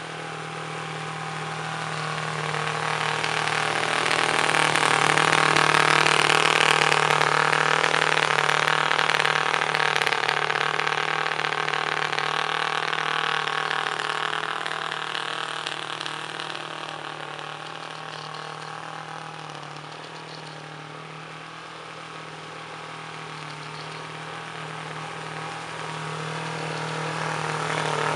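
The 138cc water-cooled twin-cylinder four-stroke gasoline engine of a homemade radio-controlled model boat, running steadily at speed. It grows louder a few seconds in as the boat passes close, fades to its faintest past the middle as the boat moves away, and grows louder again near the end as it comes back close.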